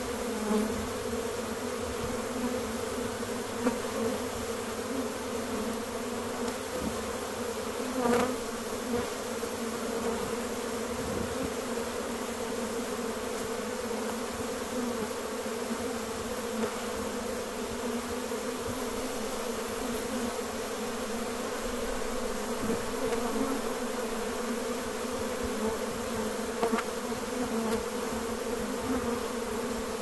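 A honey bee swarm leaving its hive: the steady, dense buzz of thousands of bees in flight, with a single bee buzzing loudly past close by about eight seconds in.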